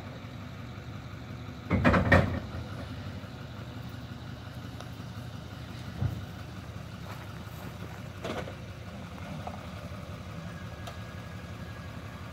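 Pickup truck engine running slowly at low revs while it moves a shed trailer, with a brief louder burst about two seconds in and a couple of smaller knocks later on.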